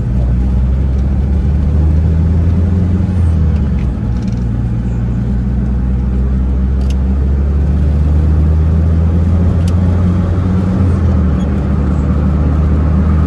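A car's engine and road noise at steady highway cruise, heard from inside the cabin: a continuous low drone with no change in pace.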